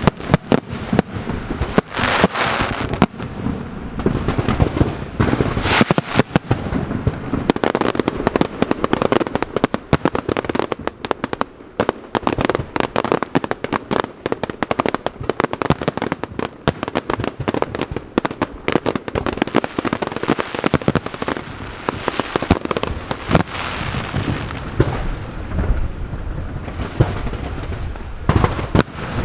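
Aerial fireworks bursting in a dense, continuous barrage: many sharp bangs and crackles in quick succession over a constant rumble.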